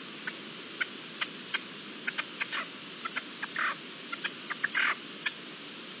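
A quick, irregular series of short ticks and clicks over a steady outdoor hiss, with two longer, scratchier sounds about three and a half and nearly five seconds in.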